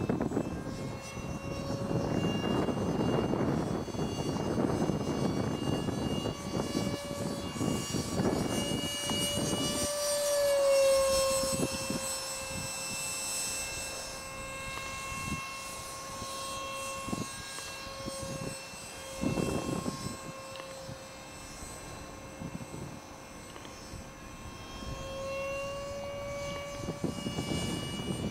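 Radio-controlled model jet in flight, its motor giving a steady high whine with overtones that dips in pitch about ten seconds in and rises briefly near the end. Low wind rush on the microphone through the first third and once more midway.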